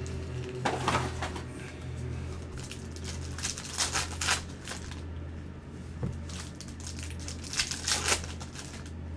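Foil trading-card pack wrappers crinkling and tearing as packs are opened and handled, in three short bursts.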